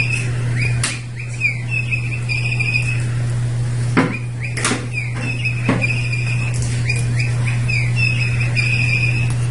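Bird toy chirping over and over: a repeating run of high chirps and short falling whistles, like recorded birdsong. A few sharp knocks come around the middle, over a steady low hum.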